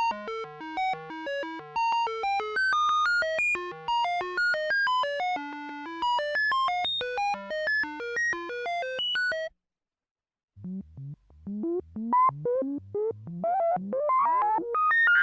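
Synthesized electronic tones in quick random sequence, several short beeps a second jumping up and down in pitch over a faint low hum: a computer-signal sound effect. The tones stop for about a second partway through, then start again and thicken into overlapping gliding tones near the end.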